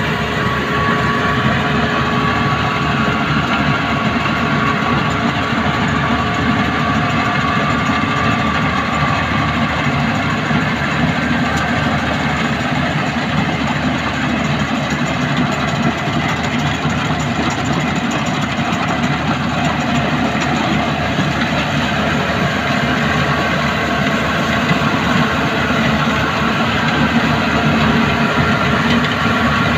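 Rice combine harvester running steadily: a loud, unbroken engine-and-machinery drone with a faint steady whine.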